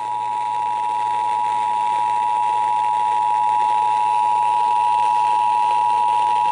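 Emergency Alert System two-tone attention signal broadcast over FM radio: two steady pitches sounding together, held loud and unbroken, with faint hiss and a low hum underneath.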